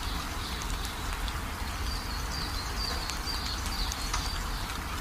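Nature ambience: a steady rain hiss over a low rumble, with scattered brief ticks and runs of short high chirps, about two a second.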